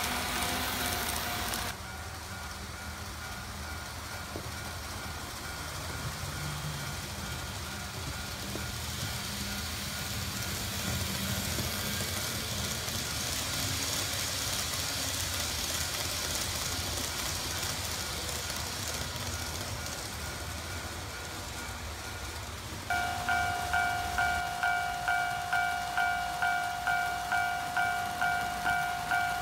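N gauge model trains running on the layout track, a steady whirring and rattling. About 23 seconds in an electronic warning tone starts and beeps about twice a second.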